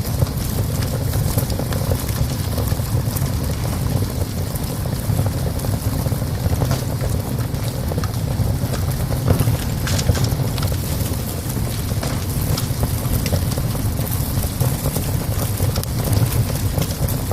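Wood fire crackling in a small stove: scattered sharp pops and snaps over a steady low rumble.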